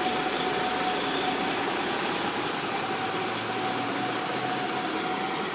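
Road coach's engine running steadily as the coach pulls away and drives slowly off.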